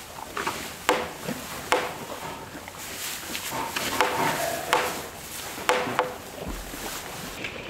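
Irregular sharp knocks and clatter, about seven in a few seconds, several with a brief ringing note after them.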